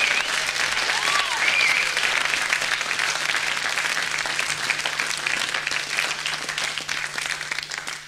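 Live concert audience applauding after a blues number, with a short whistle about a second in, the clapping slowly dying away. A steady low hum from the old radio-broadcast cassette recording runs underneath.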